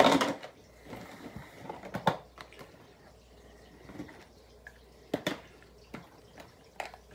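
Products being handled and rummaged for in a box: light rustling of packaging with a few sharp clicks and knocks, at the start, about two seconds in, about five seconds in and near the end.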